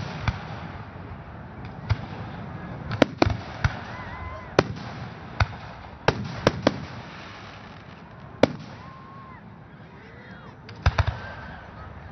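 Aerial fireworks shells bursting, about a dozen sharp bangs at uneven intervals, some in quick pairs and triples, the last a quick triple near the end.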